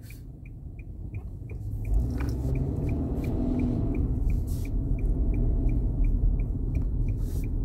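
Car cabin noise: a low road and engine rumble that swells after about two seconds, as when the car picks up speed. Under it runs a faint, even ticking of about two to three clicks a second.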